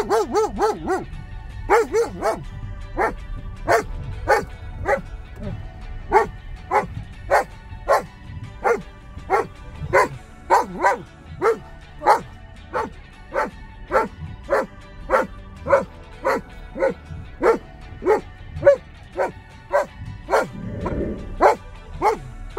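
German Shepherd dog barking and yipping over and over, short high-pitched excited calls at about two a second, inside a car.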